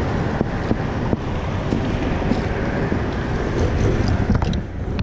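Wind buffeting the camera microphone: a steady low rumble with a few faint clicks.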